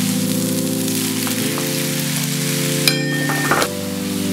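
Beef strips, onions and green peppers sizzling in a hot oiled pan as they are stirred with a wooden spatula, with a brief sharper clatter about three and a half seconds in. Background music of sustained chords plays throughout, changing about every two seconds.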